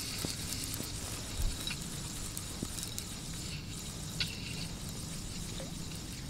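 Spinning reel being wound in while a fish is brought up, giving faint, irregular clicking with a few small knocks, over a steady low rumble and hiss.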